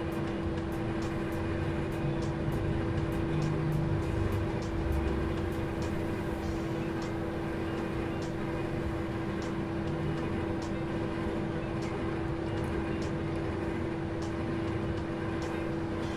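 Microwave oven running: a steady hum with one constant low tone, with scattered faint clicks over it.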